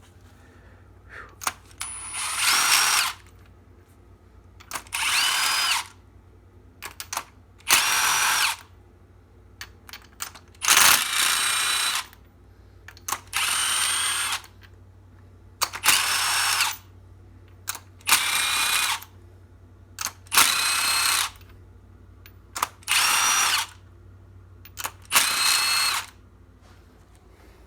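Handheld electric power drill run in about ten short bursts of roughly a second each, every two to three seconds, each spinning up with a rising whine and winding down as the trigger is released.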